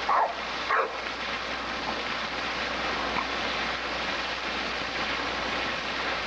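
Fountain water jets splashing steadily, with a dog yipping a couple of times in the first second as it snaps at the spray.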